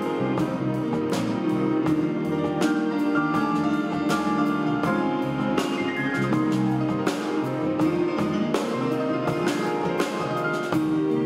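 A string ensemble of violins, cellos and double bass plays a piece with sustained chords and sharp accents on a steady pulse.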